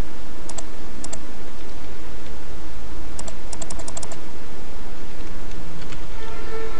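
Computer keyboard keys being typed: two single clicks, then a quick run of about eight keystrokes as a web address is entered, over a steady hiss and low hum.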